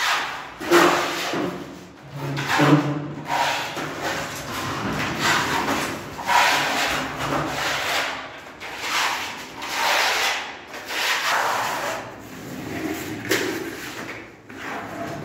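Hand sanding of dried wall putty with sandpaper: rasping back-and-forth strokes against the wall, about one a second.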